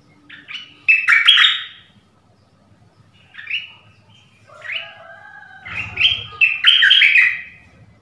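Stripe-throated bulbul song, a male calling for a mate: four bursts of quick, bubbly notes, the longest and loudest near the end.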